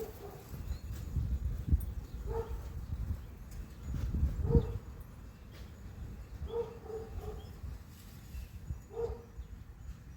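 A dog barking in short single barks, about four times, over a low, uneven rumble.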